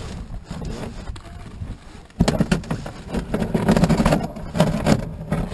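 Paddling a plastic Old Town Saranac canoe: paddle strokes through the water with the paddle knocking and scraping against the hull, busier and louder from about two seconds in.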